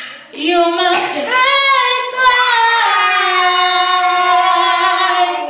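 A young child singing with a woman singing along, a few short rising phrases and then one long held note of about three seconds that sinks slightly in pitch.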